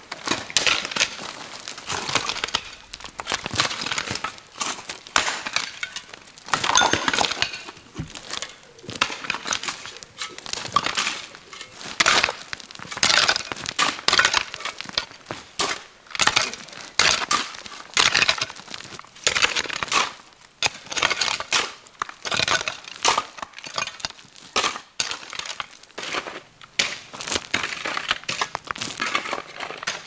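Hoes chopping repeatedly into dry, stony soil: a run of crunching strikes at an uneven pace, with clods and pebbles scattering.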